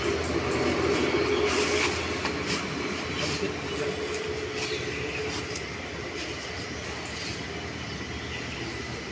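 A steady motor hum that fades after about five seconds, with scattered rustles and crackles of people stepping among dry leaves and rocks.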